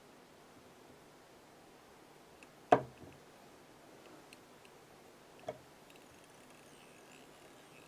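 Two sharp clicks of small fly-tying tools being handled at the vise: a loud one about a third of the way in and a softer one about three seconds later, with a few faint ticks between.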